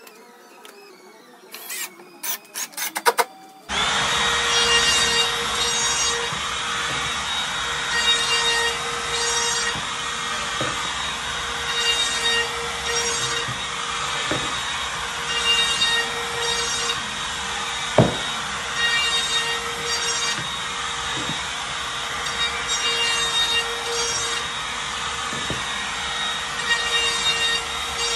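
Cordless trim router starting about four seconds in and running at a steady high pitch, growing louder in repeated cutting passes every few seconds as it trims the edge of an MDF panel. A few sharp knocks come in between.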